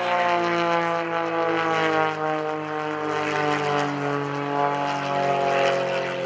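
Pitts S-1S aerobatic biplane's Lycoming IO-360 engine and propeller running in flight, with a pitch that slides down over the first couple of seconds and rises again a few seconds later.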